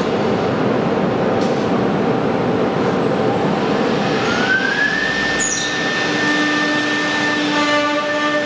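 CNC door-panel router running with its dust extraction, a steady mechanical noise. About three seconds in a whine rises for two seconds and then holds at one pitch, and more steady tones join it near the end.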